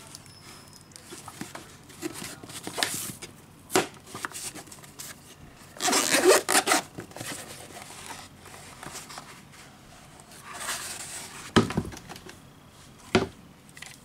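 Handling of a fabric-covered hard-shell zip case: rubbing and scraping, a zipper being pulled open around the case in a dense rasping stretch about halfway through, and a few sharp knocks as the case and a drone controller are moved on the table.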